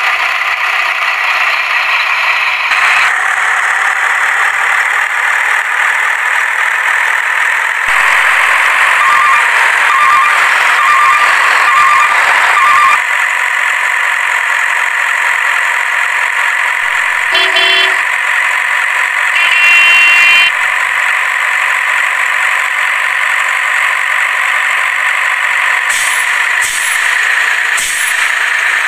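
Heavy truck engine sound effect running steadily, laid over toy trucks that have no motor. A string of five short horn beeps comes about nine seconds in, and two more horn toots follow later, with a few sharp clicks near the end.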